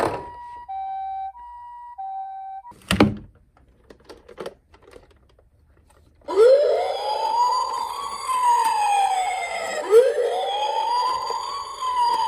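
Toy ambulance minicars' electronic sirens. First a high-low two-tone 'pee-po' siren alternates between two notes, then stops. A thunk comes about three seconds in. After a few quiet seconds, a wailing siren rises and falls twice.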